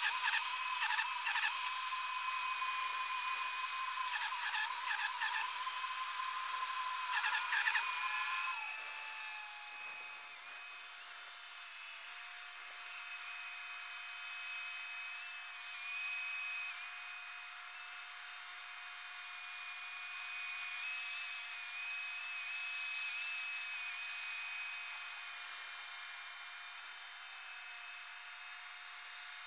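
Sped-up sound of a rail track tamper and ballast regulator at work, their diesel engines and hydraulics turned into a high, buzzing whine. About eight and a half seconds in, the whine suddenly drops in pitch and becomes smoother.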